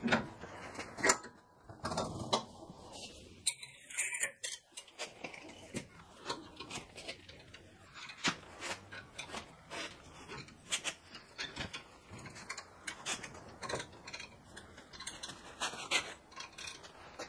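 Metal clinks, knocks and scrapes of a square-tube bender being fitted over and levering a 7mm steel rebar rod clamped in a bench vice: irregular sharp clicks with no steady rhythm, the loudest about a second in.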